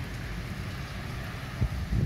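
Steady rain hiss over a wet city street, with wind buffeting the microphone as a shifting low rumble. Two short, loud low thuds come near the end.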